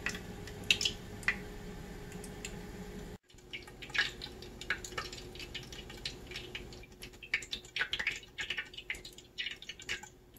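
Funnel cake batter deep-frying in hot oil in a lidded electric skillet: scattered crackles and pops of spitting oil, sparse at first and coming thicker from about seven seconds in. The sound briefly cuts out about three seconds in.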